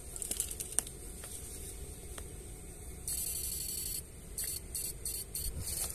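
Electrofishing rig buzzing and crackling in short bursts as its poles are worked through the ditch water, the longest burst about halfway through, with a few sharp clicks before it.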